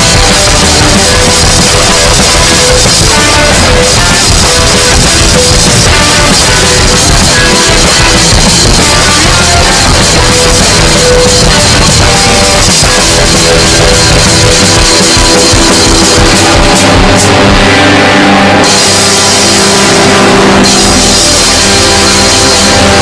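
Lo-fi black metal music: a loud, dense wall of band sound with drum kit. Its hissy top end cuts out briefly twice near the end.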